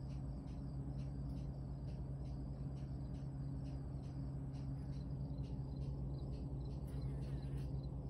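Insect chirping in an even rhythm, about two or three short high chirps a second, over a steady low hum.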